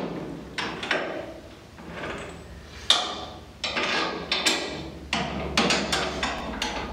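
Metal hand tools clinking and knocking, a series of irregular sharp clanks with one louder knock about three seconds in, as tools are handled while the upper control arm bolts are worked on.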